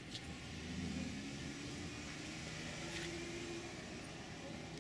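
A motor vehicle engine running at low speed, a low hum that comes up about half a second in and fades near the end.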